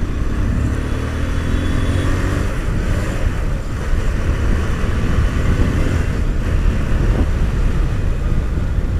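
Bajaj Pulsar 220's single-cylinder engine running steadily under a rider at city speed, with wind and road noise rushing over the helmet-mounted microphone.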